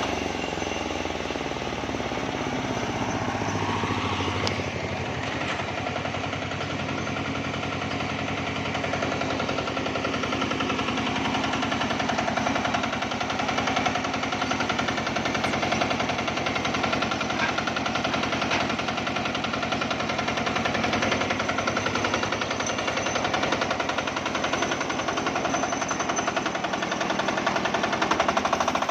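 Single-cylinder Matsumoto diesel engine running steadily under a homemade sawmill, with a rapid, even knocking beat.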